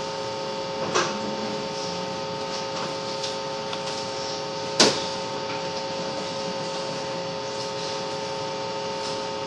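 Steady hiss and hum from a live microphone and PA system being set up, with two steady tones, and a sharp click about five seconds in.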